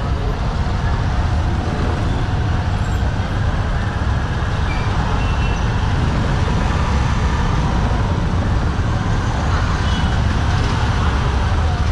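Steady street traffic noise: a continuous low rumble of passing vehicles with no distinct single event.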